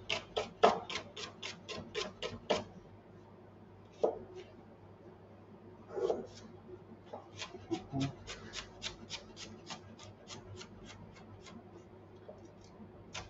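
Kitchen knife chopping greens on a cutting board in quick, even strokes, about four a second. The strokes stop for a few seconds after the start, then pick up again.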